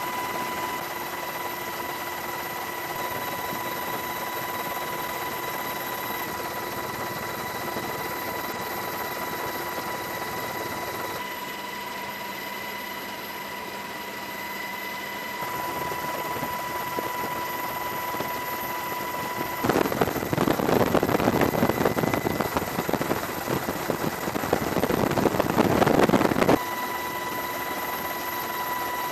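Helicopter running steadily, a constant engine and rotor noise with a high steady whine. For about seven seconds from two-thirds of the way in, a louder rough rushing noise without the whine takes over, then the steady helicopter noise returns.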